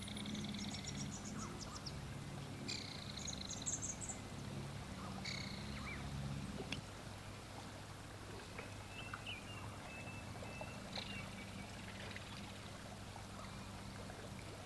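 Short, high trilled animal calls, repeated every two to three seconds and fainter in the second half, over a low steady hum that drops away about seven seconds in.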